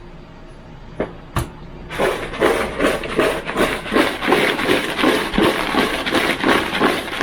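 Two sharp knocks, then steady rhythmic shaking, about two to three strokes a second, as freshly fried French fries are salted and shaken.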